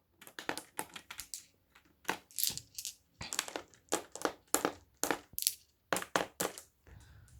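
Marbles clicking together as they are handled, an irregular quick run of sharp clicks with short gaps.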